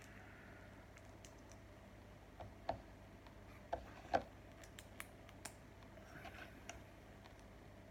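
Small plastic Lego pieces being handled and pressed together: scattered sharp clicks and snaps, the loudest few in the middle.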